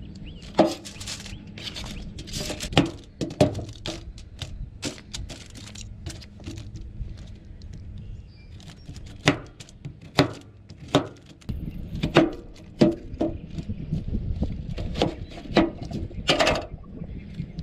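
Butcher knife chopping vegetables on a plastic cutting board: irregular, sharp knocks as the blade cuts through squash and onion and strikes the board.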